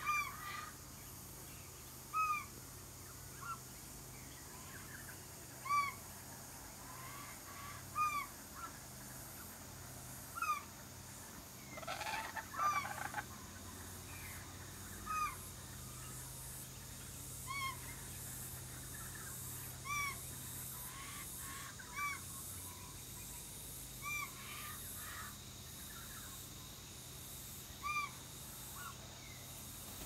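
Laughing kookaburra giving a short, single call note about every two seconds, each a brief note that rises and falls, with a harsher, rougher call about twelve seconds in.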